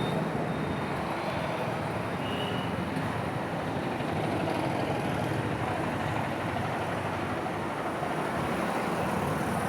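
Steady road-traffic noise with no distinct knocks or clicks.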